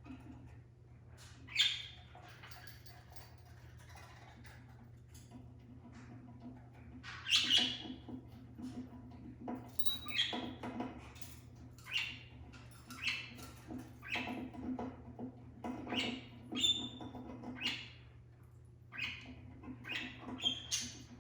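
Pet budgerigars chirping and squawking in their cage: short calls, few at first, then coming every second or so from about seven seconds in, over a low steady hum.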